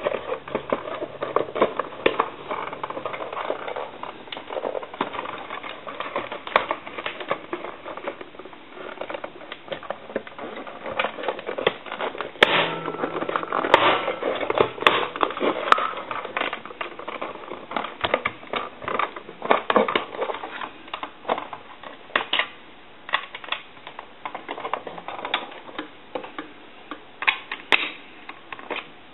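Telephone parts being handled and fitted back together by hand: a steady run of small, irregular clicks, taps and rattles, with a few sharper clacks now and then.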